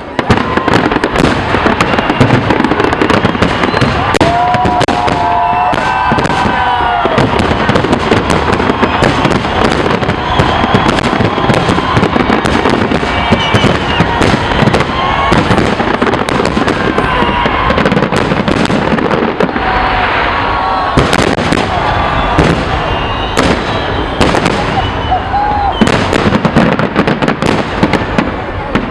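Fireworks display at full intensity: a dense, unbroken barrage of bangs and crackling bursts.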